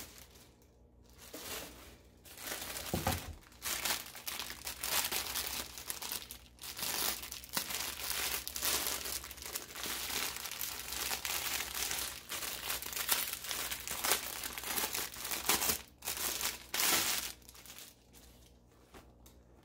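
Clear plastic packaging wrap crinkling and rustling as it is pulled off and handled, starting about a second in and dying down near the end.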